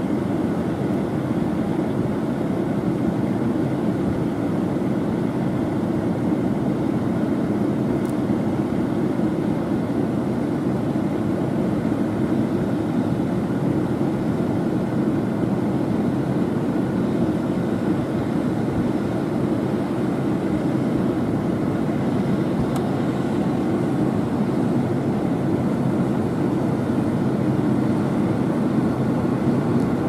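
International 1460 combine harvester running steadily as it shells corn: a continuous drone of its diesel engine and threshing machinery.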